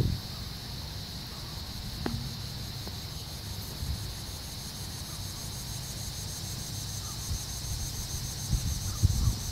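Outdoor insect chorus: a steady high hiss with a fast, even chirping pulse over it. Low wind rumble on the microphone runs underneath, with a few soft knocks near the start, about two seconds in and near the end.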